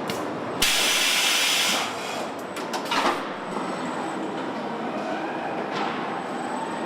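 Car assembly line machinery: a steady mechanical din, then a loud hiss lasting about a second. Just after it comes a quick run of sharp clicks and clanks, and a shorter, softer hiss follows near the end.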